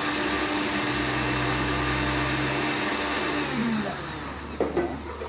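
Electric blender running steadily, then switched off, its motor winding down with a falling pitch about three and a half seconds in. Two sharp knocks follow near the end.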